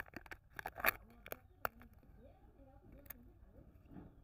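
Sealed lid being peeled off a plastic Kinder Joy egg cup, with a few sharp crinkles and crackles of the packaging during the first second and a half and a single click about three seconds in.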